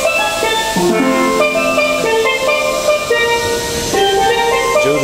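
A steel pan (steel drum) played solo: a quick, continuous run of struck metallic notes, each ringing on briefly as the next is hit.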